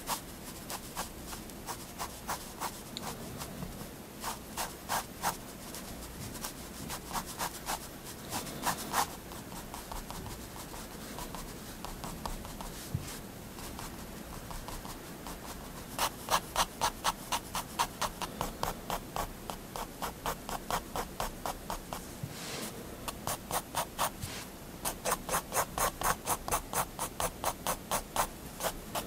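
Staedtler triplus 0.3 mm fineliner scratching on paper in short hatching strokes. The strokes come in quick runs of about five a second, with softer, scattered strokes between.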